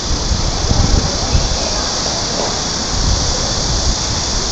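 Steady rushing noise with an uneven low rumble, and faint voices in the background.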